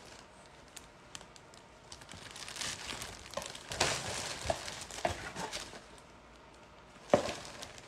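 Rustling and crinkling of something being handled close to the microphone, with scattered light clicks and one sharper click about seven seconds in.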